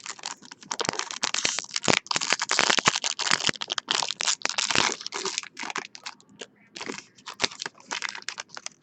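Crackling and crinkling of stiff Bowman Chrome trading cards being handled and shuffled by hand, densest in the first half and thinning out later.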